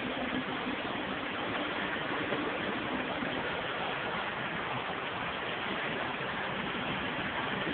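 Steady road and engine noise heard from inside a moving vehicle's cabin, an even rush with a faint low hum.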